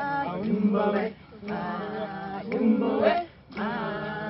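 Voices singing together without instruments, in short phrases broken by brief pauses about a second in and about three seconds in.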